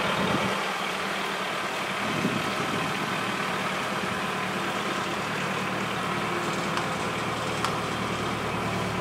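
Compact utility tractor's engine running steadily as it pulls a seed drill across a field.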